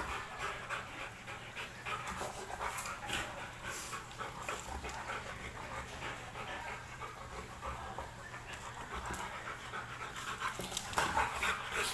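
Belgian Malinois panting hard with quick, rhythmic breaths, as a dog does when worked up from play.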